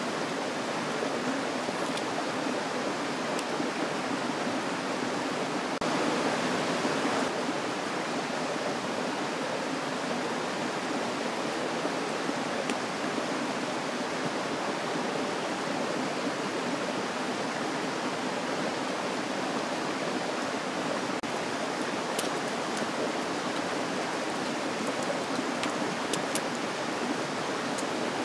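A steady rushing noise like running water from a stream, unbroken throughout, with a few faint snaps from the campfire in the second half.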